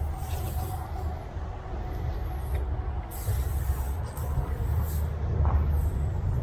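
A steady low machine rumble with a faint whine, broken by several short hissing bursts of spray, from a soft-wash spraying rig applying cleaning solution.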